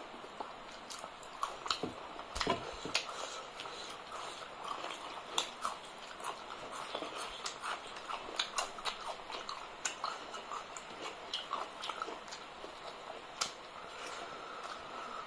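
Close-miked eating of rice and curry by hand: wet chewing, lip smacks and mouth clicks, with the squish of food being mixed with the fingers. The sounds come as an irregular string of small clicks and smacks.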